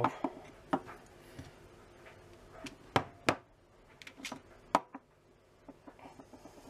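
A series of sharp clicks and knocks as the brass exhaust valve assembly of a Hatsan Galatian air rifle is handled and set down on a worktop. The loudest comes about three seconds in, and a run of faint ticks follows near the end.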